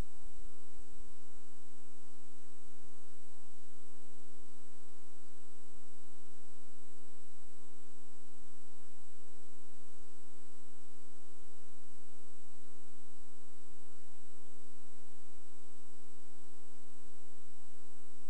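Steady electrical mains hum: a buzz with many evenly spaced overtones and a thin high whine above it, unchanging throughout.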